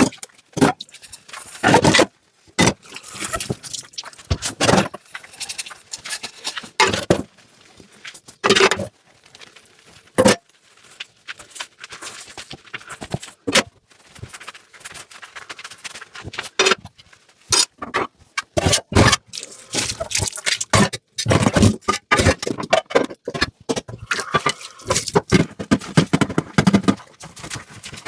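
Dishes and utensils being handled during hand dishwashing: many irregular clinks, knocks and scrapes, coming thicker in the second half.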